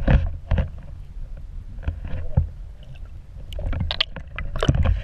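Muffled water sloshing with a steady deep rumble and irregular sharp knocks, heard through an underwater camera's housing as a chain pickerel is held in the water and let go. The knocks come thicker near the end.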